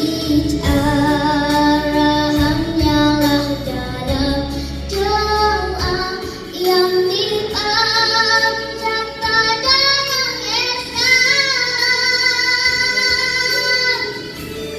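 A child singing a high, powerful song over backing music, holding long notes with vibrato and climbing to higher notes from about eight seconds in.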